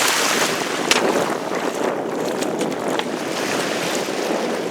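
Sea waves washing in over a stony shore, with wind buffeting the microphone. A few short sharp splashes or knocks cut through, the strongest about a second in.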